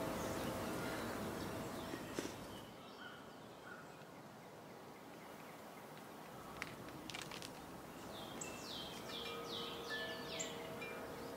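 Soft music fades out over the first two seconds, leaving quiet outdoor ambience. Near the end a bird gives a quick run of about six falling notes.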